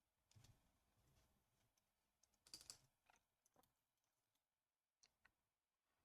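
Faint computer keyboard typing: scattered single keystrokes with a short flurry about two and a half seconds in.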